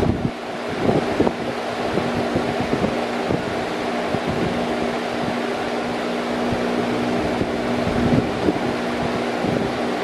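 Metal fan running steadily: a continuous rush of air with a steady low hum, the airflow swelling unevenly now and then.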